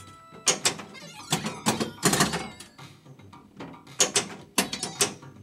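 Bally Elvira and the Party Monsters pinball machine in play: a dozen or so sharp, irregular clacks of flippers, coils and the ball over the game's synth music.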